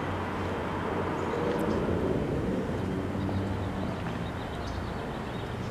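Lamborghini Gallardo GT3 race car's V10 engine idling steadily, with a slight swell about two seconds in.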